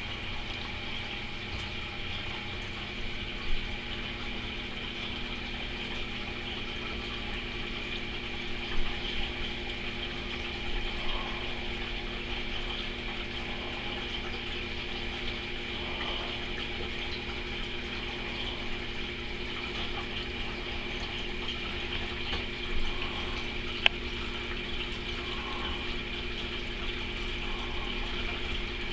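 Steady motor hum and whir of aquarium pump equipment, with a few soft knocks and one sharp click about three-quarters of the way through.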